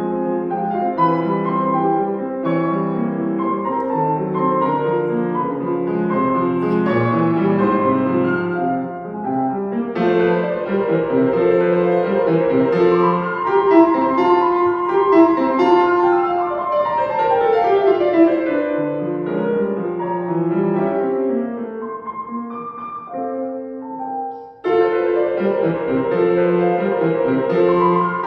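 Solo piano playing a classical piece in busy runs of notes, with a descending run partway through. A softer passage breaks off briefly before a loud entry near the end.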